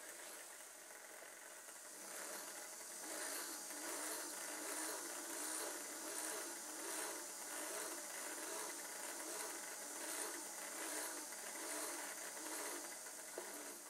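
The two electric drive motors and gear train of a model SHE 57 locomotive running on test, the wheels turning, with a steady gear whir and rattle. It gets louder about two seconds in and wavers in a regular rhythm a little more than once a second, as the motor is gently shifted by hand to find the best gear mesh.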